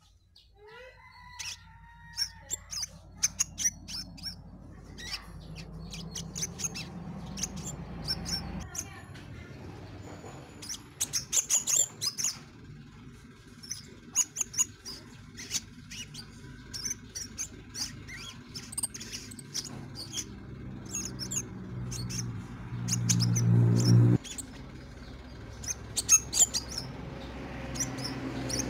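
A caged crimson sunbird (sepah raja) calls actively, giving many short, sharp, high chirps in quick runs. Under it runs a low hum that swells loud a little past two-thirds of the way through and then cuts off suddenly.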